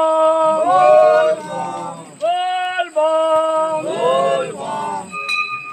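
Voices chanting a devotional kirtan in a run of long held notes, each about half a second to a second, rising and falling in pitch. About five seconds in, a hanging brass temple bell is struck and rings on.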